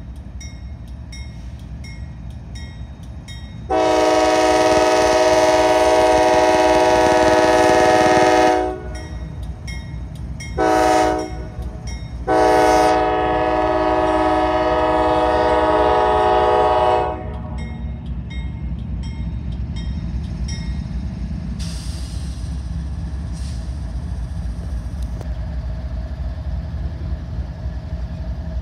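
Norfolk Southern freight locomotive's air horn sounding for a grade crossing: a long blast of about five seconds, a short toot, then another long blast. Between the blasts a crossing bell rings about twice a second, and the diesel locomotives rumble steadily as they pass close by.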